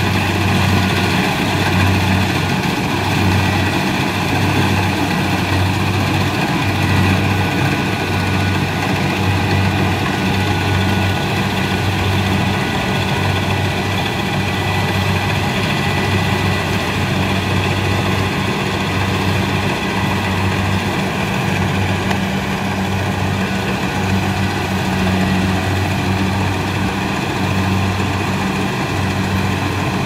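Tracked rice combine harvester running steadily while harvesting: a low diesel engine hum that pulses slightly, under the even noise of the threshing machinery.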